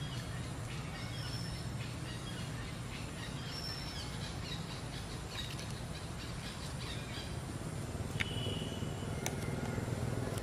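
Outdoor ambience: scattered short, high chirps and squeaks over a steady low rumble, with a couple of sharp clicks late on. The rumble grows slightly toward the end.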